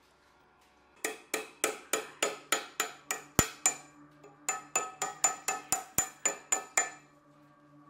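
Background music: two quick runs of evenly spaced struck or plucked notes, about three a second, with a short break between them, over a low held tone.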